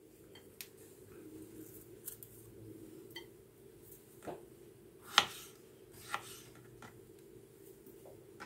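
A knife cutting strawberries on a plastic cutting board: three sharp taps of the blade on the board, between about four and six seconds in, the middle one loudest, with soft handling scrapes before them and a faint steady hum under it all.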